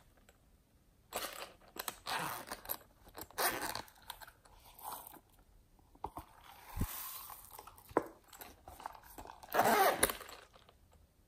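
Hands handling and squeezing a ribbed red toy: a few short crinkly rustles and scrapes, the loudest just before the end, with one soft low knock about seven seconds in.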